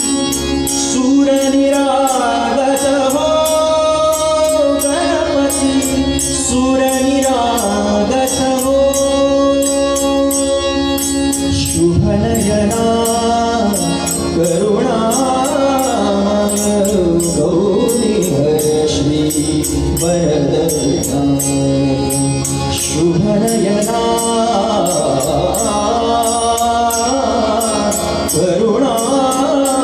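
Live Indian devotional music: tabla keeping a steady rhythm under sustained drone notes and a winding, gliding melody line, with no sung words.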